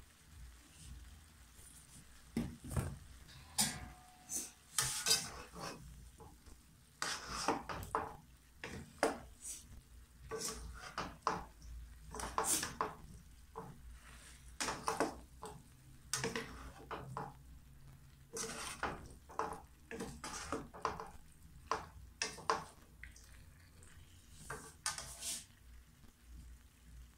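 Wooden and metal spatulas scraping and knocking against a wok as cauliflower florets are tossed and stirred, in irregular strokes from about two seconds in until near the end, with frying sizzle underneath.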